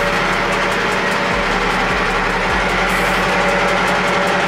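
A steady engine-like mechanical hum running without change.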